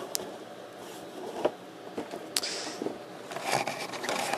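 Handling noises from the cardboard radio kit box being moved about: a few light clicks and taps, a sharper tap about two and a half seconds in, then a soft rustle near the end.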